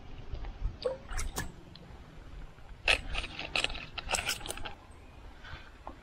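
Close handling noises of a light fishing line being worked with gloved hands while baiting up: a few short clicks and rustles about a second in, then a denser cluster of them from about three to nearly five seconds in.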